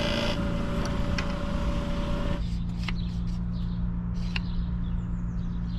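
Diesel fuel-polishing pump running with a steady hum while it circulates fuel through the tank. A higher tone drops out suddenly about two and a half seconds in, leaving the lower hum with a few light clicks.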